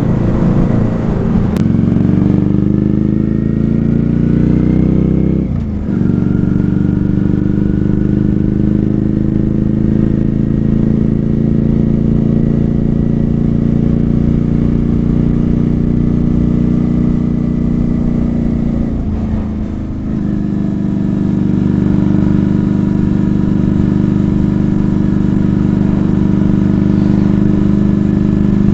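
Honda Shadow 400 V-twin running through Screamin' Eagle 2 aftermarket silencers on the move. The exhaust note climbs under acceleration, drops at an upshift about six seconds in, climbs slowly again and drops at a second shift about twenty seconds in. After that it settles into a steady cruise.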